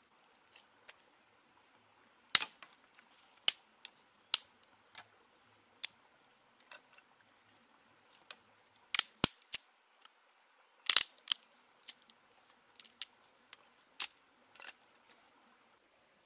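Dry sticks snapping and knocking as they are handled and laid in a stone fire pit: irregular sharp snaps, a few quite loud, with a cluster of them about nine and eleven seconds in.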